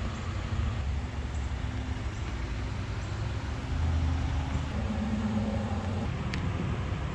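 Steady low mechanical rumble of a running engine with a faint hum, the hum growing stronger for about a second around five seconds in.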